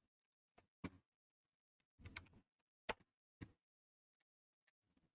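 Near silence broken by about five faint, sharp, irregularly spaced clicks of a computer keyboard and mouse.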